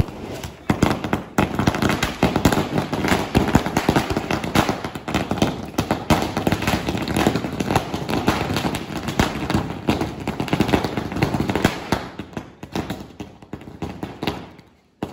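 A long string of small firecrackers going off in a rapid, continuous crackle of bangs that starts about a second in and thins to scattered pops over the last few seconds.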